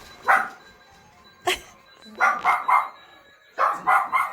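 A dog barking repeatedly with short, sharp barks: a single bark, another about a second later, then two quick runs of three barks.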